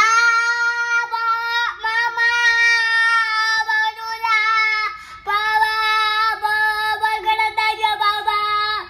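A toddler singing out long, steady held notes inside a corrugated metal play tunnel, with short breaks about two and five seconds in.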